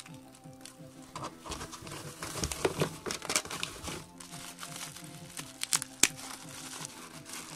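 Plastic packaging crinkling and crackling as hands unwrap a clear plastic bag and a red bubble-wrap pouch, in dense bursts from about a second in with a sharp crackle near six seconds. Background music plays throughout.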